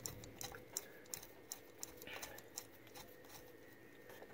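Faint light ticks and clicks, several a second and not quite evenly spaced, over a low steady hum.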